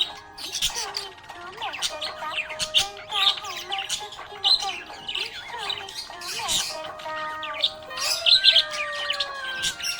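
Budgerigar chirping and warbling: a busy, unbroken run of short chirps, squawks and clicks.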